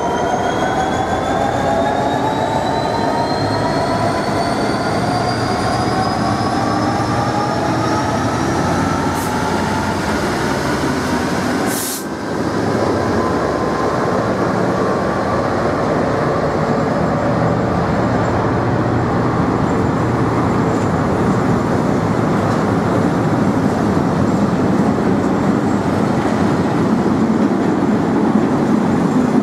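Freight train passing close by: a Class 66 diesel locomotive and then a long run of covered car-carrier wagons, wheels rumbling on the rails. Several whining tones rise steadily in pitch over the first ten seconds or so, and the rumble briefly dips about twelve seconds in.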